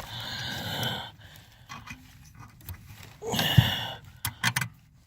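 A man breathing hard, with two long noisy exhales from working in a cramped spot under the dash, then a few quick sharp clicks near the end.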